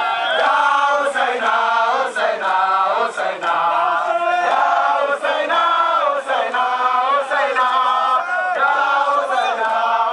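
Crowd of men chanting in unison, some through megaphones: a Shia Ashura mourning chant for Imam Hussein, sung steadily with no pause.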